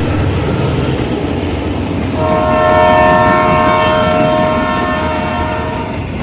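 Container freight train with a diesel locomotive passing close by, a steady loud rumble of wagons on the rails. About two seconds in, the locomotive's horn sounds a steady chord for about four seconds.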